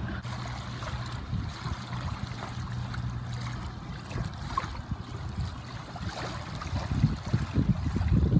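River water lapping and washing at a sandy edge of the river, with a low rumble that grows louder near the end.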